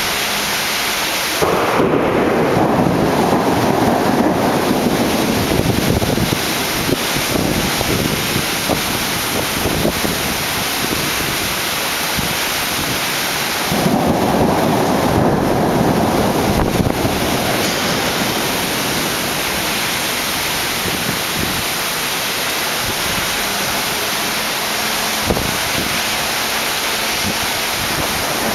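Steady heavy rain during a thunderstorm, with two long rolls of thunder: one about a second in and another about halfway through, each swelling suddenly and fading over several seconds.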